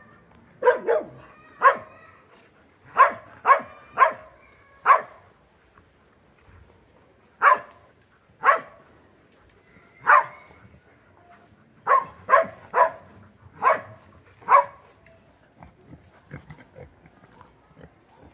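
A dog barking, about fifteen short sharp barks in irregular groups of one to four, stopping about three-quarters of the way through.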